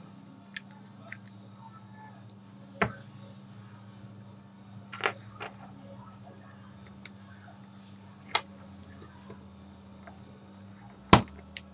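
Plastic pieces of a 3x3 Rubik's cube clicking as they are slid and popped back into the core during reassembly: single sharp clicks every second or few, the loudest near the end, over a steady low hum.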